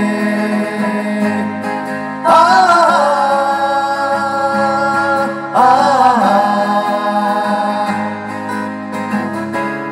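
Acoustic guitars strumming a slow ballad accompaniment while a singer holds two long wordless notes. Each note enters with an upward bend, about two seconds in and again about five and a half seconds in.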